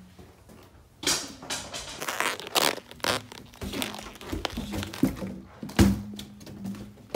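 Rubber balloons being squeezed and rubbed together in a hand right at the microphone: a run of irregular rubbing, crinkling scrapes.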